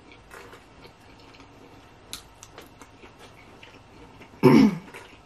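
Quiet eating sounds: scattered soft clicks of chewing and of a plastic fork picking at food on a paper plate. About four and a half seconds in comes one short, loud voiced sound falling in pitch.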